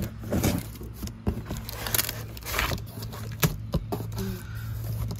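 A taped cardboard box being opened by hand: scrapes, rips and knocks of packing tape and cardboard flaps, in a string of short bursts over a steady low hum.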